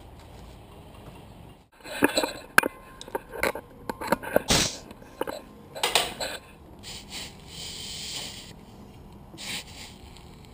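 A series of sharp metal clanks and knocks as an air hose and its fittings are handled, then a steady hiss of compressed air from a tire inflator chuck on a trailer tire's valve stem, lasting about a second and a half, with a shorter hiss near the end.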